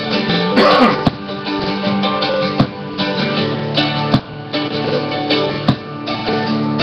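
Guitar music, with no singing.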